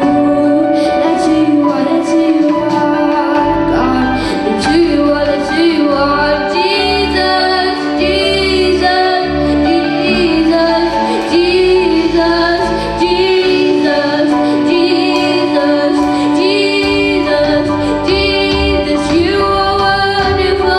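Worship music: a woman singing a sustained melody over instrumental accompaniment with a bass line.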